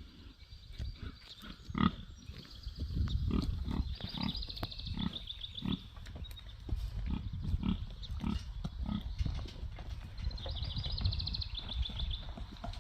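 Feeder pigs grunting over and over, in short low grunts. A bird trills twice in the background.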